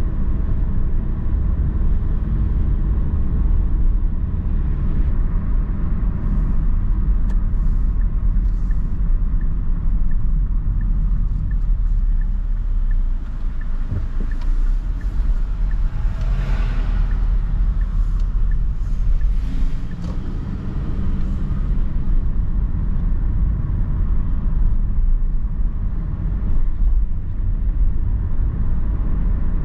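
A car driving on town streets, heard from its dashboard: a steady low rumble of engine and road noise, with a brief louder hiss about halfway through.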